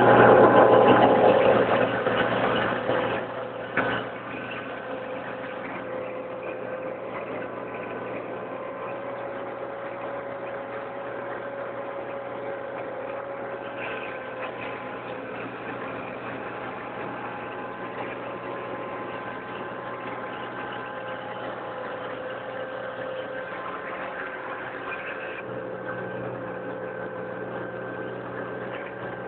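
Tractor engine running steadily under load while pulling a plough, heard from the driver's seat. A louder, rougher noise fills the first four seconds, then it settles into an even drone.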